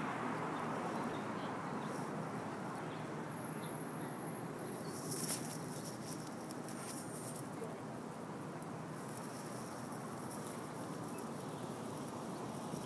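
Steady outdoor street ambience, a low even hum of distant traffic. A short burst of clicks and clatter comes about five seconds in, with a few fainter clicks just after.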